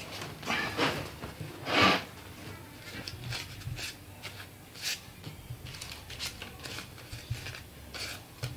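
Crumpled paper banknotes being unfolded and handled: a run of short crinkles and rustles, loudest about two seconds in.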